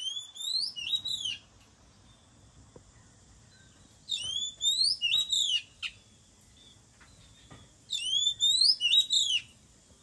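Male oriental magpie-robin singing: the same short whistled phrase of rising and falling sweeps, about a second and a half long, given three times about four seconds apart.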